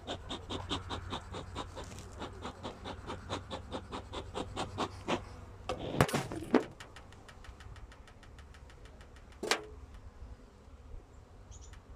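Honey bees buzzing steadily at an opened hive. Over the first two-thirds a fast, even clicking runs at about five ticks a second, and there are two sharper knocks near the middle as the hive is handled.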